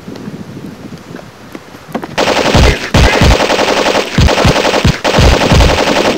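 Rapid automatic gunfire in several loud bursts of machine-gun fire, starting about two seconds in.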